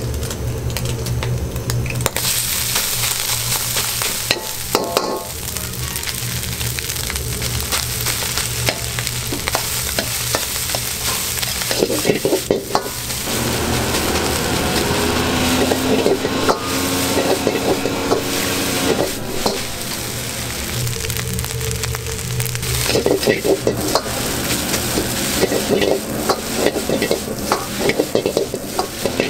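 Shrimp egg fried rice sizzling and hissing in a hot wok as it is stir-fried, with a metal ladle scraping and clanking against the wok, thickest about twelve seconds in and again over the last six seconds. A steady low rumble runs underneath.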